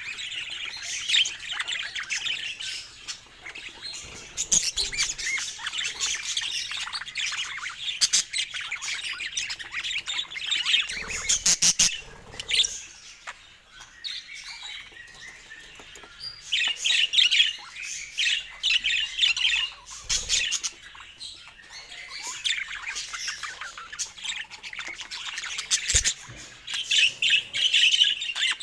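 Budgerigars chattering and warbling in fast bouts of chirps with harsh squawks mixed in. There is a short run of sharp clicks about halfway through.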